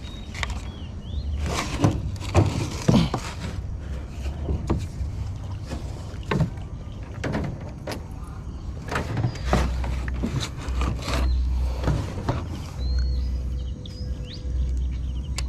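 Paddle strokes splashing and dripping in the water, roughly one a second, from a small paddle boat moving through weedy water, with a low rumble underneath. A few short bird chirps come in near the end.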